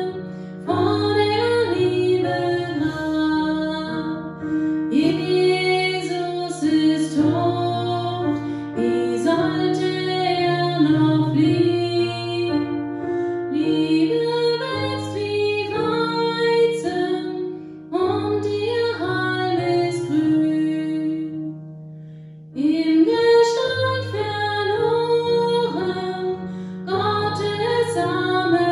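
A woman singing a slow, quiet song in phrases over a soft instrumental accompaniment of held low notes.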